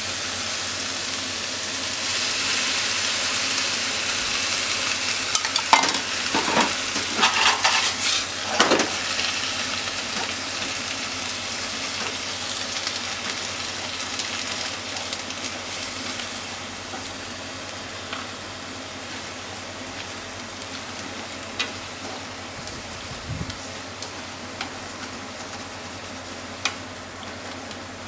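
Sliced pork and onion sizzling in a frying pan while a spatula stirs them, with a run of scrapes and knocks of the spatula against the pan about five to nine seconds in and a few single clicks later. The sizzle slowly grows quieter.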